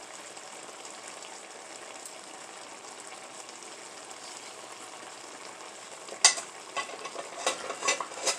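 Vegetable curry cooking in the pot with a steady sizzle. About six seconds in, a cooking utensil knocks and clacks against the pot several times, the first knock the loudest.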